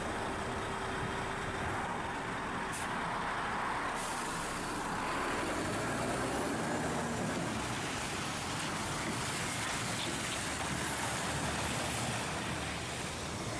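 Diesel engine of a rigid crane lorry towing a drawbar trailer, running steadily as it drives past and away, with tyre and road noise.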